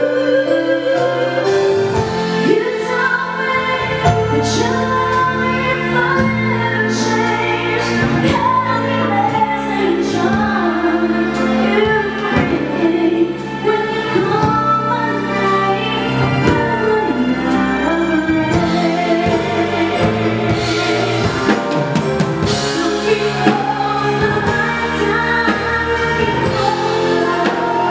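Live band music: a woman singing lead into a microphone over a drum kit and keyboard.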